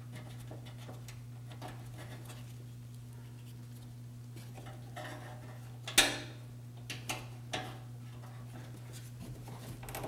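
Small clicks and clinks of a bolt and the plastic cowl panel being handled and fitted by hand, with one sharp click about six seconds in and a few lighter ones soon after, over a steady low hum.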